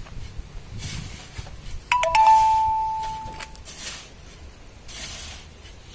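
Shovel scraping into wet sand every second or so. About two seconds in, metal clangs twice in quick succession against the steel dump bed and rings out for about a second.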